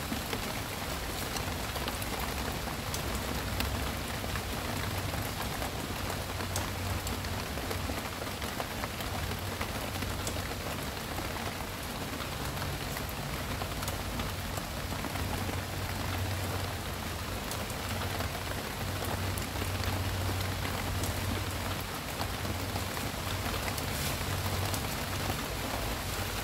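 Steady rain falling on a rooftop garden, an even hiss with scattered separate drop ticks, over a low steady rumble.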